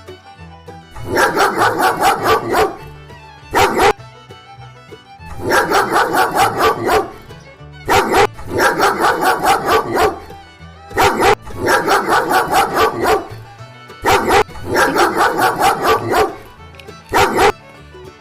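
A dog barking in quick runs of several barks, about five runs with single barks between them, over quiet background music.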